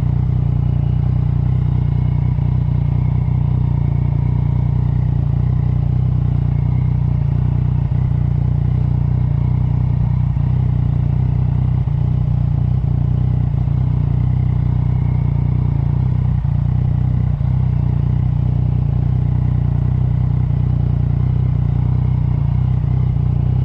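Motorcycle engine running at a steady low note, without revving up or down.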